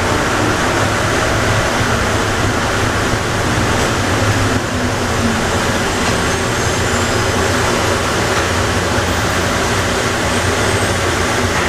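Automated airport people mover train running, a steady rumble with a low electric motor hum.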